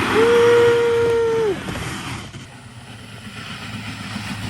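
A person's single long held yell, steady in pitch and dropping off after about a second and a half, over the rush of wind and water while riding down a water-park tube slide. The rushing dies down about two seconds in.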